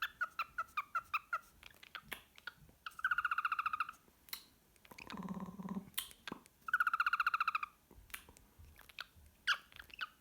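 Cockatiel singing: a quick string of short chirps, then two loud trilled notes about a second long each, with a lower, softer sound between them and more chirps near the end.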